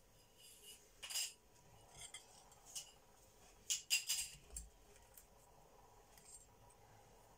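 Metal slotted serving spoon scraping and clinking against a baking tray and a plate as pieces of baked fish are lifted across. There are a few short scrapes, with the loudest cluster about four seconds in.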